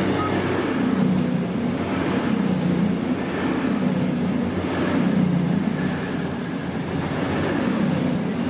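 Passenger train running, with a steady low hum and a constant high-pitched whine.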